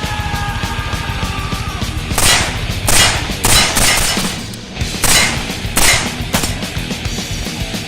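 About six shots from a 7.62x39 AR-15 rifle fitted with a hex muzzle brake, fired at a steady pace in two groups with a short pause between them, over heavy metal music.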